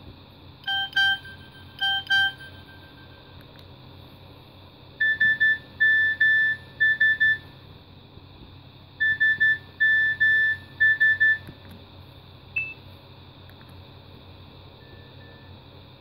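Nokia 5200 mobile phone's loudspeaker playing message-alert tones as its menu is scrolled. A two-note electronic beep sounds twice near the start, then a quick phrase of short high beeps plays twice through the middle. A single short blip and a faint beep come near the end.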